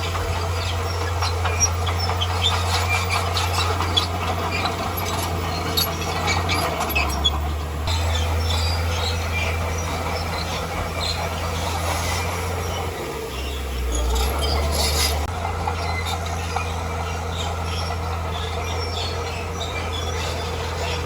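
Bulldozer's diesel engine running under load, its pitch dropping and rising a few times as the load changes, with metallic clanking and squeaking from the tracks and the rock being pushed.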